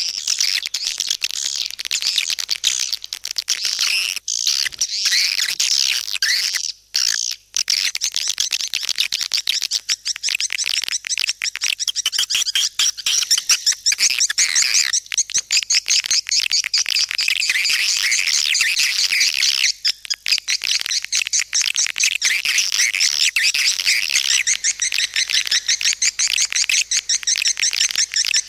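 Swiftlet lure call: a recording of swiftlets twittering in dense, rapid, high chirps with hardly a break. It is the 'suara panggil' (calling sound) played in a swiftlet house to draw the birds in to roost and nest. There is a brief gap about seven seconds in.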